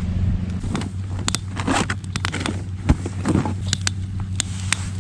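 Wood campfire crackling, with sharp irregular pops and snaps over a steady low rumble.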